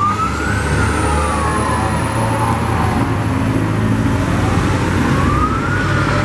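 MAZ fire engine's siren on a slow wail: it climbs to a peak just after the start, falls slowly for about four seconds, then climbs to a second peak near the end. A steady low traffic and engine rumble runs underneath.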